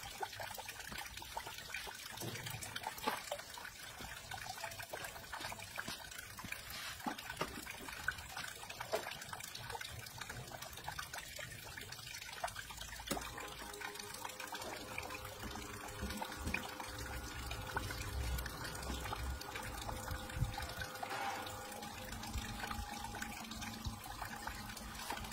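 Faint water trickling and splashing on a small homemade water wheel with plastic cup paddles turning in a basin of water. About halfway through, a faint steady hum comes in.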